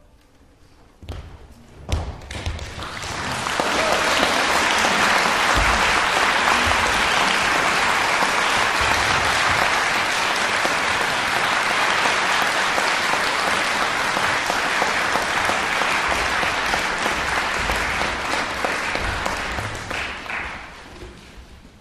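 Audience applauding in a reverberant concert hall. The applause swells in about two seconds in after a few low thumps, holds steady, and dies away near the end.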